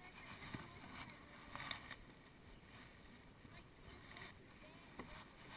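Faint kayak paddling: the paddle blades dipping and dripping water, with a few soft splashes about half a second, a second and a half and five seconds in.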